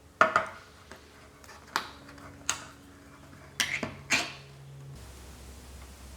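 A run of sharp knocks and clinks, about six in all and loudest near the start, as kitchenware is handled during food preparation. A steady low hum takes over near the end.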